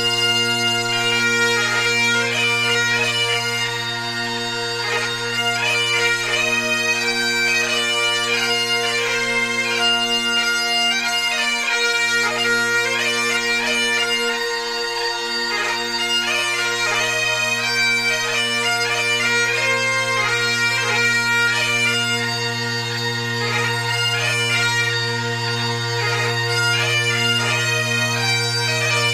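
Bagpipe music: steady drones held underneath a continuous chanter melody.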